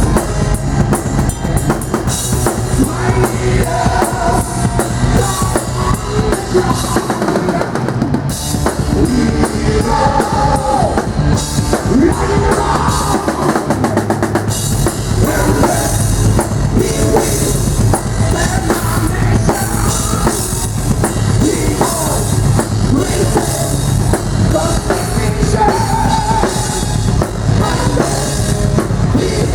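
Heavy metal band playing loudly at a sound check, the drum kit to the fore with bass drum and snare. The low end thins out for a few seconds partway through, then the full band comes back in.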